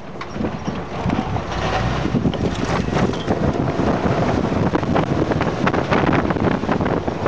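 Wind buffeting the microphone of a camera mounted outside a moving Jeep CJ7, mixed with the rush and crackle of its tyres on a dirt trail, growing louder over the first second or two as the Jeep gathers speed.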